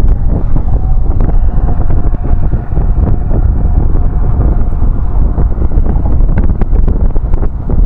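Strong wind buffeting the microphone, a loud low rumble throughout. A faint steady tone runs through the middle, and a few light clicks come near the end.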